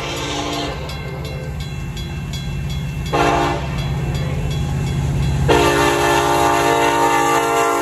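Union Pacific diesel locomotive's air horn blowing the grade-crossing signal: a long blast ending about half a second in, a short blast around three seconds in, then a final long blast from about five and a half seconds on. Underneath, the crossing bells ring steadily, about three strokes a second, over the low rumble of the approaching coal train's locomotives.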